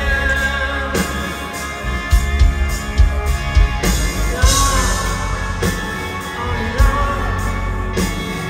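Live rock band playing: a male lead vocal over electric guitars, bass and drums, heard from within the arena crowd.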